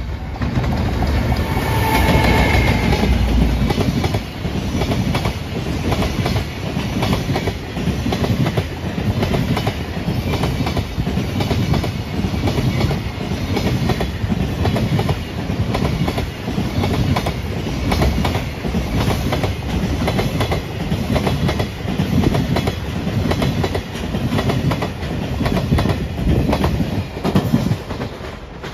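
Electric freight train passing close by: the locomotive goes by loudest about two seconds in, then a long string of container and tank wagons follows, their wheels clattering over the rail joints in a steady rhythm.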